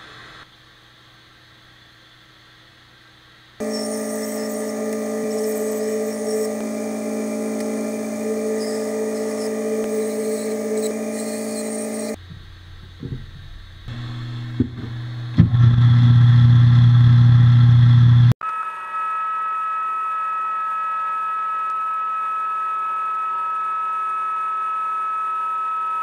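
A small benchtop belt sander's electric motor, switched on after a few knocks and running with a loud low hum. Before it, another power tool runs for several seconds as a steady, many-toned whine. After an abrupt cut, a steady high-pitched whine takes over.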